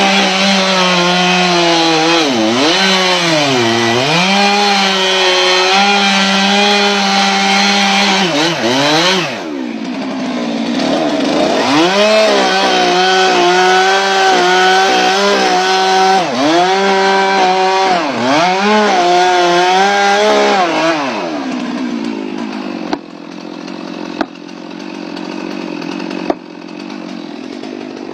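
Stihl two-stroke chainsaw at full throttle plunge-cutting into a standing tree trunk, in two long runs with the revs dipping and recovering as the bar bites into the wood. After about twenty seconds the engine note drops away, leaving a softer hiss with a few sharp knocks near the end.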